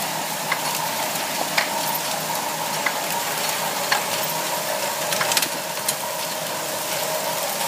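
Circular sock-knitting machine running as it knits a sock: a steady hiss with a couple of faint steady tones and scattered light clicks.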